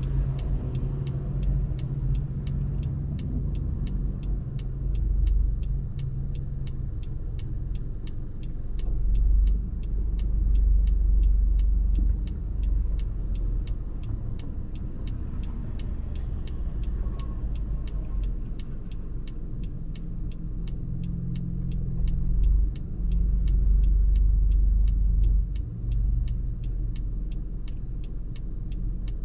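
Car driving, a steady low road-and-engine rumble that swells louder twice. A faint, regular high tick about twice a second runs through it.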